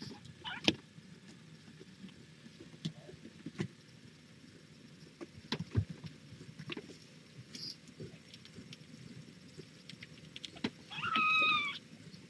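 A young kitten mewing once near the end, a short high cry, over scattered light taps and knocks of kittens and a hand moving on a towel-covered pen floor, one sharper tap about a second in.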